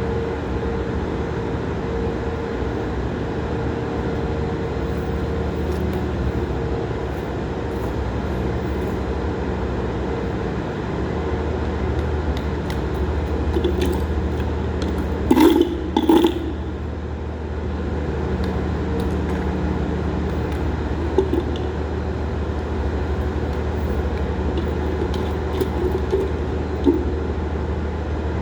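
Steady mechanical hum with several constant tones, like machinery running. A couple of sharp knocks, close together, come about halfway through, and there are a few light clicks later.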